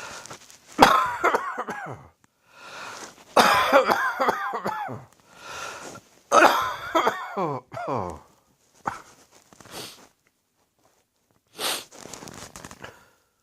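A person with a heavy cold and sore throat coughing in three hard fits about three seconds apart, with breaths drawn between them, then a few weaker coughs and breaths near the end.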